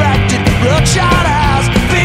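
Loud rock music with a driving drum beat, cymbal hits and a bending melodic line.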